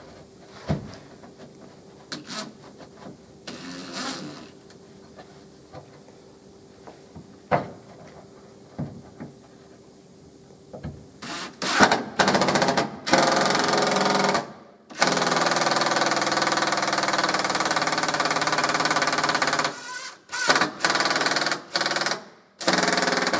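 Cordless drill running in several loud bursts from about eleven seconds in, the longest lasting about five seconds, as screws are driven through a fibreglass install pan into a boat floor. Before that there are only light handling clicks.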